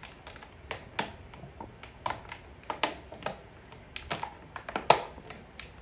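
Clear plastic container being pried open and handled, giving irregular sharp clicks and crackles of flexing plastic, with the loudest snap near the end.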